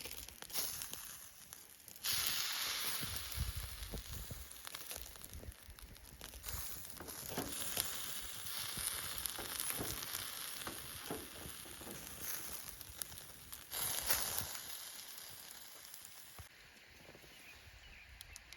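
Wagyu steak sizzling on the grill net over a campfire. The sizzle starts suddenly about two seconds in, flares again briefly near the end, then dies down, with small crackles from the fire.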